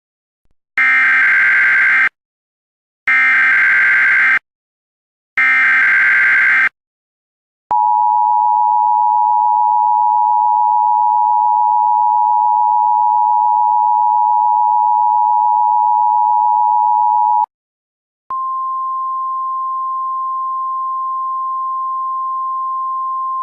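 Emergency Alert System header: three short bursts of SAME digital data tones with brief gaps between them. Next comes the EAS two-tone attention signal, held steady for about ten seconds. After a short pause, a single steady, slightly higher NOAA Weather Radio alert tone starts.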